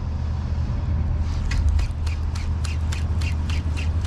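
Spinning reel's drag clicking in a fast, even run of about six or seven clicks a second, starting about a second in, as a hooked fish pulls line off against the drag.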